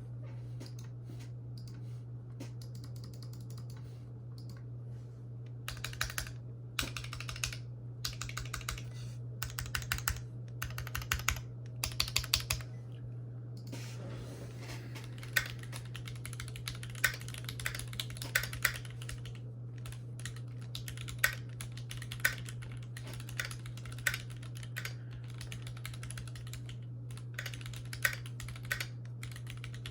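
Typing on a Keychron Q2 aluminium-cased mechanical keyboard with Boba U4T tactile switches and GMK doubleshot ABS keycaps: a few light keystrokes, then quick bursts of typing about six seconds in, settling into steady typing with an occasional louder stroke. A steady low hum runs underneath.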